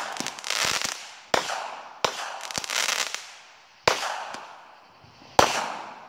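Aerial fireworks bursting: about four sharp bangs a second or so apart, each followed by fading crackling.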